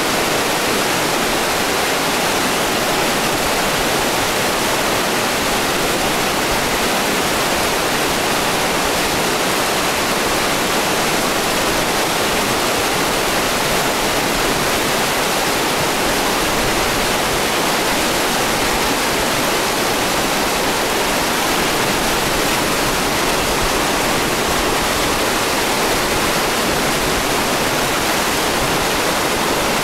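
Fast-flowing forest stream rushing over rocks: a loud, steady, unbroken rush of water.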